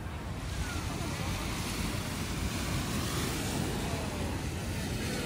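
Waves washing onto a sandy beach, with wind buffeting the microphone.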